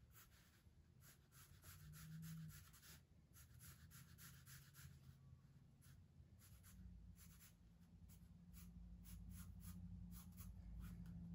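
Faint scratching of a pencil on drawing paper: runs of short, quick sketching strokes with brief pauses between them.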